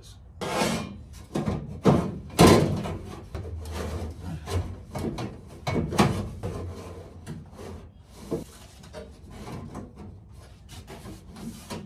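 A 16-gauge steel floor patch panel being worked into place in a car's floor pan: irregular scraping and rubbing of sheet metal on sheet metal, broken by several sharp knocks, the loudest about two and a half seconds in.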